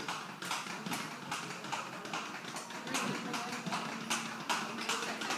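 Hoofbeats of a Paso Fino horse being ridden at its even, quick four-beat gait along a barn aisle: a rapid run of sharp taps, growing a little louder in the second half.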